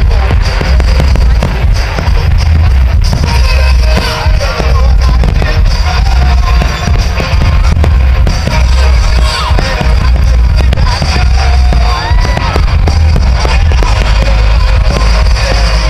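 Fireworks shells bursting in quick succession over loud music with a heavy low rumble.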